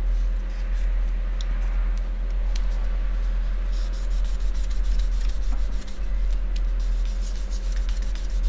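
A cloth scrubbing back and forth on the copper base plate of a graphics card heatsink, polishing away old thermal paste residue. The quick rubbing strokes get busier from about halfway through, over a steady low hum.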